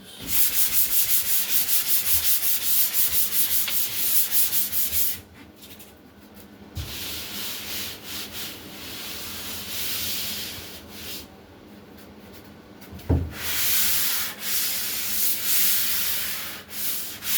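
Hand sanding dried drywall joint compound with a sanding sponge: quick back-and-forth rasping strokes that stop and start. There is a single low thump partway through.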